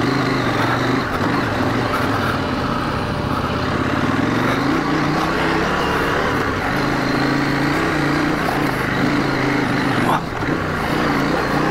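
Adventure motorcycle's parallel-twin engine running on a dirt track, its revs rising and falling with the throttle, with a brief knock about ten seconds in.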